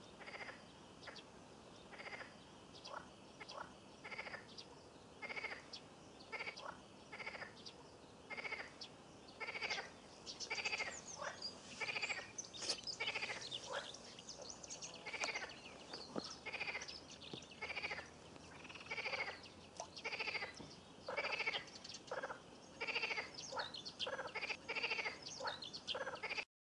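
Pond frogs calling: short, rough, bleating croaks repeat about once a second, getting louder and more frequent from about ten seconds in, with several calls overlapping. The sound cuts off suddenly near the end.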